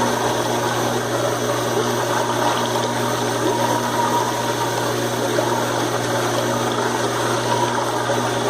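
Washing machine pump running with water, a steady hum under a constant rushing noise; the owner takes it for cavitation.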